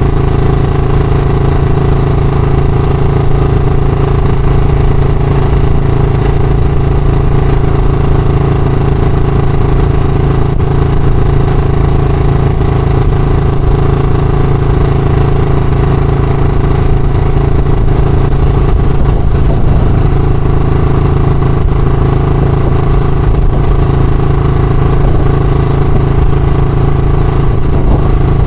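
Royal Enfield Classic motorcycle's single-cylinder engine running steadily at an even, unchanging speed, loud and close to the microphone.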